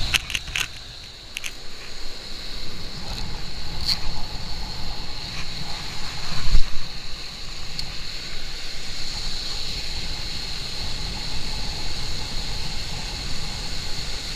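Strong wind blowing on the microphone, a steady low rumble, over a steady high hiss, with a few clicks near the start and a loud thump about six and a half seconds in.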